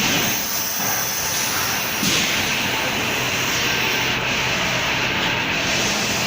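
Fabric welding machine for roller-blind material running with a steady hiss over a low hum, the hiss growing brighter about two seconds in.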